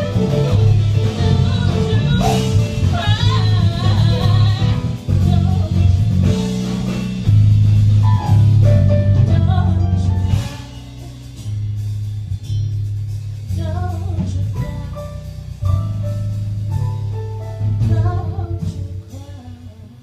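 Live jazz band playing, with bass and drum kit under piano and a lead melody line with vibrato. The band drops to a softer, quieter passage about halfway through.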